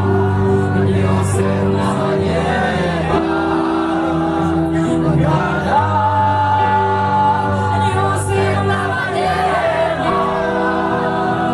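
Live band music with singing: a sung melody over sustained bass notes.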